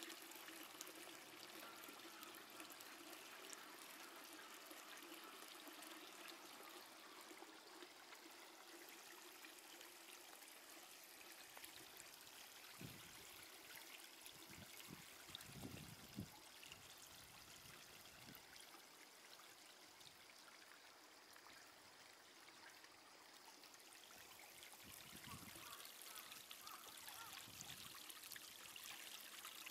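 Near silence: a faint steady outdoor hiss, with a few soft low thumps about halfway through and again near the end.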